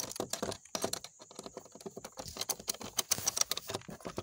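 Hand screwdriver turning a screw into the sheet-metal inner door panel of a Maruti Suzuki Wagon R: a quick, irregular run of metallic clicks and ticks as the screw threads in and the bit works in its head.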